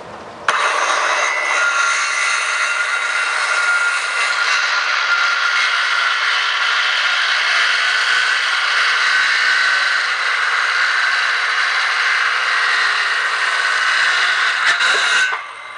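Handheld circular saw starting up and cutting through a wooden board, a steady high-pitched whine that stops abruptly near the end.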